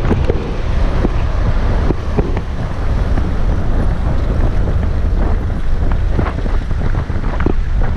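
Wind buffeting the microphone while riding a bicycle through city streets: a loud, steady low rumble with scattered light clicks.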